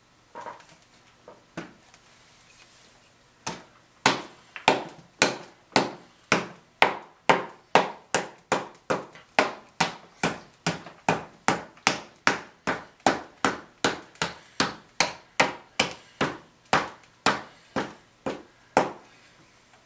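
Small hammer tapping repeatedly. A few light taps come first, then from about four seconds in a steady run of sharp strikes, about two a second, which stops shortly before the end.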